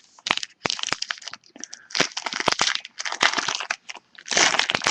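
Plastic crinkling and rustling in irregular bursts as trading cards and their packaging are handled.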